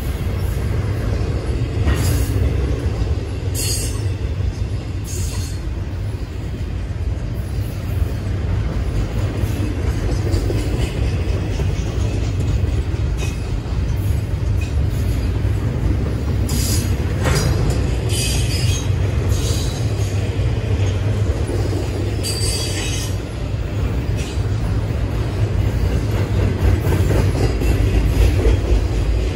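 Double-stack container train's well cars rolling past: a steady low rumble of steel wheels on rail. Brief high-pitched screeches come through a few times, near the start and again about two-thirds of the way in.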